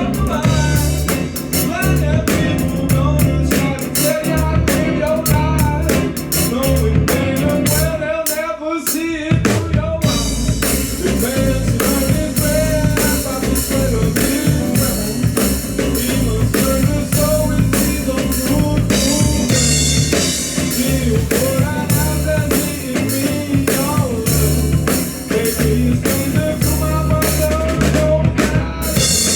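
Band music: a drum kit keeping a steady beat over heavy bass, with a wavering lead melody on top. The drums and bass drop out for about two seconds around eight seconds in, then come back.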